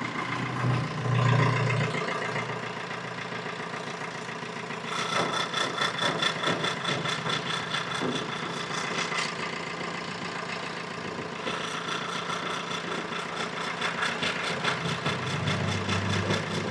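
Maruti Swift's engine idling steadily, with a faster rattling tick joining about five seconds in and easing off a few seconds later.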